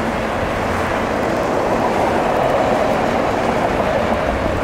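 Freight train of autorack cars passing close by: the steady noise of steel wheels rolling on the rails, a little louder in the middle.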